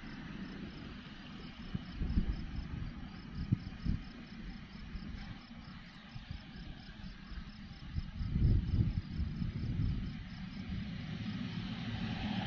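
Wind buffeting the microphone in gusts, loudest about two seconds in and again from about eight seconds, with an insect chirping steadily at about four chirps a second. Jet engine noise from the Boeing 777-300ER starts to build near the end.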